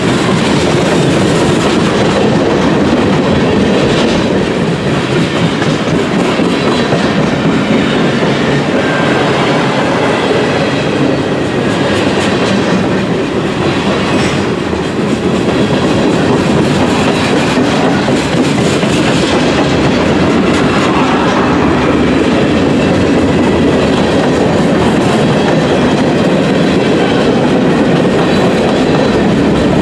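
Norfolk Southern freight train passing close by: steady, loud noise of the cars' steel wheels rolling over the rails, with a regular clicking at the rail joints.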